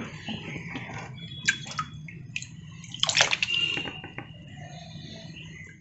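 Water splashing and sloshing in a shallow fish-breeding tank, in irregular small splashes with a louder burst of splashing about three seconds in.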